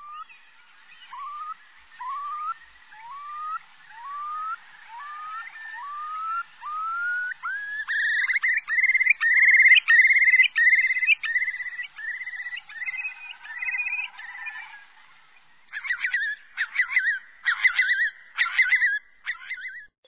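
Eurasian curlew's bubbling song: slow rising whistles, about one every three-quarters of a second, that speed up and climb into a loud bubbling trill. A few seconds of broken, rapid calls follow near the end.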